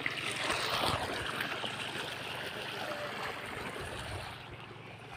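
Steady rush of flowing water from a solar-powered irrigation pump, easing slightly near the end.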